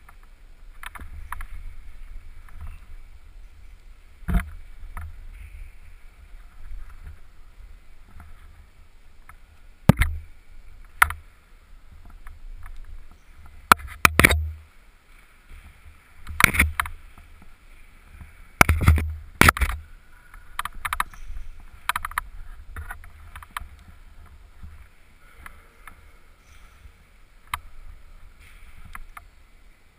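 Knocks and scrapes of a climber's hands, shoes and helmet against a concrete climbing wall, picked up by a helmet-mounted camera, over a low rumble of handling and rubbing noise. The knocks come irregularly, loudest around the middle.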